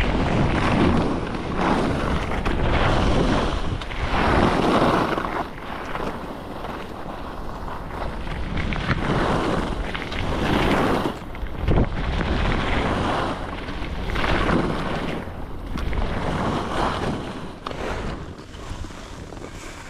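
Skis swishing and scraping through fresh snow during a run, swelling and fading every couple of seconds as the skier turns, under steady wind rushing on the camera's microphone. A single sharp knock about halfway through.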